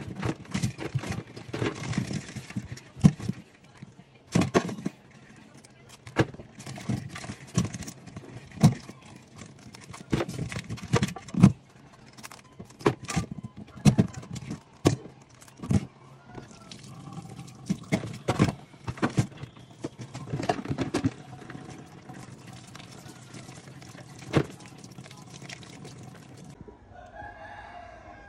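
Kitchen scissors snipping and a crab's shell knocking against a stainless-steel sink as the live crab is trimmed and scrubbed, with a tap running through the second half that cuts off suddenly near the end. Chickens cluck and crow in the background.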